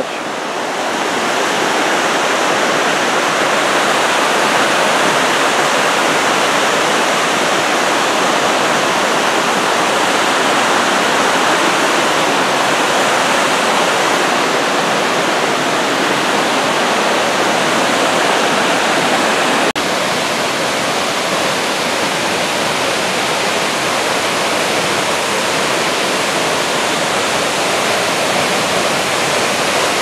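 Steady rushing of a creek tumbling over rock cascades and of Cherokee Falls pouring into its pool. A faint click and a slight drop in level come about twenty seconds in.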